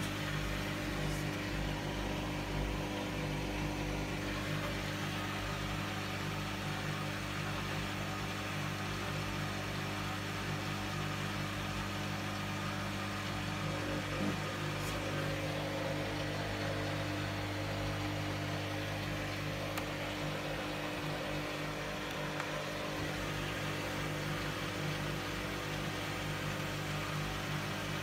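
Hoover front-loading washing machine's drum motor humming steadily as the drum turns wet laundry at low speed, trying to even out a load that is still unbalanced before the final spin. The hum changes slightly about halfway through.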